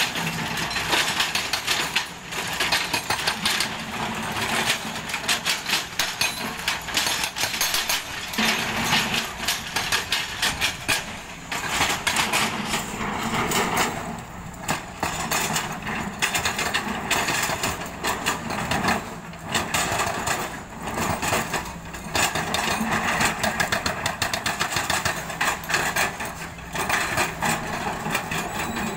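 Kobelco SK140 excavator's hydraulic rock breaker hammering rock in runs of rapid blows broken by brief pauses, over the excavator's diesel engine running.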